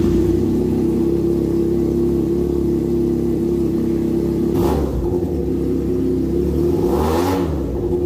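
Benelli 302's parallel-twin engine with a 360° crankshaft idling steadily, given two short throttle blips, one a little past halfway and a bigger one near the end. Its even firing gives it a sound close to a four-cylinder.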